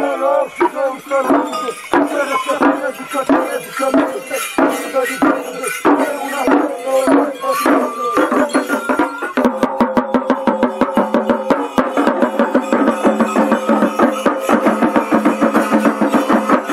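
Drums and tambourines of a Romanian colindători troupe beating out a folk rhythm under a bending melody. About nine seconds in, the beat changes to fast, even drumming over a steady held tone.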